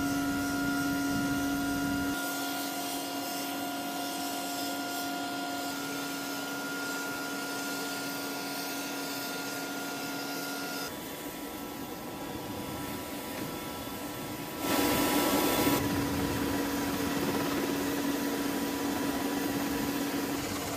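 Steady turbine whine of an HH-60 Pave Hawk helicopter, a mix of a few constant tones over a rushing noise. It changes abruptly a few times, and a louder rush of noise comes briefly about fifteen seconds in.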